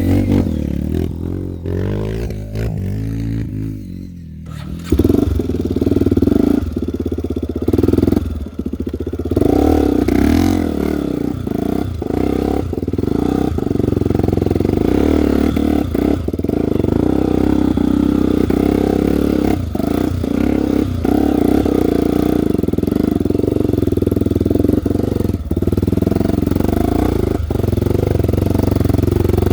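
Single-cylinder trail motorcycle engine, a Honda XR 250 Tornado, revving hard and repeatedly. It eases off briefly about four seconds in, then comes back strong and keeps surging up and down.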